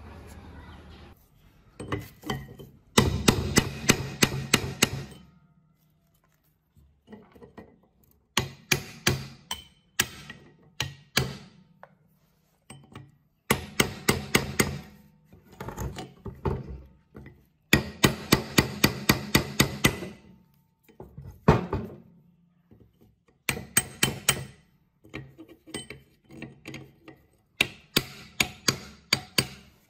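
Hammer blows in quick runs of several strikes, pausing briefly between runs, with a ringing edge to each strike.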